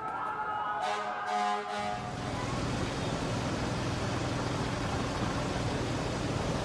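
An emergency siren wailing and a horn sounding for the first two seconds or so. After a sudden change, there is steady street noise with the low hum of idling emergency vehicles.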